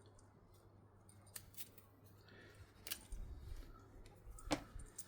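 A few sharp clicks and snips of small hand work on a headlight wiring loom, with some low handling thuds; the loudest click comes about four and a half seconds in.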